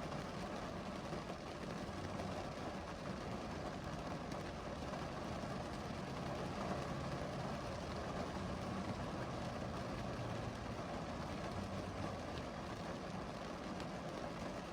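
Steady rain falling, an even continuous hiss, with a low hum underneath.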